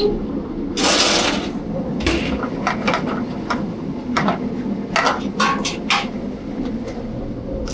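Restaurant kitchen line: metal pans and utensils clanking in a string of sharp knocks over a steady hum from the gas range and exhaust hood, with a short hiss about a second in.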